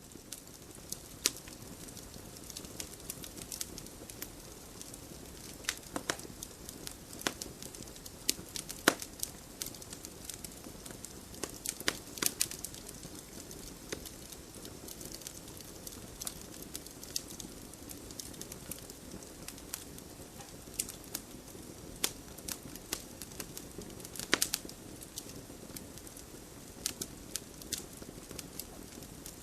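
Campfire crackling: a steady low hiss of burning wood with scattered sharp crackles and occasional louder pops.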